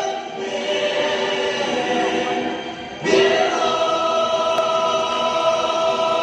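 Stage-show music carried by a choir of sustained sung voices, played over a theatre sound system. It dips briefly, then swells back louder about three seconds in and holds long notes.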